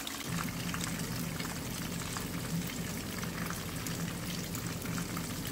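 Breaded anchovy fillets deep-frying in hot oil in a frying pan: a steady crackling sizzle. A low, steady hum comes on just after the start.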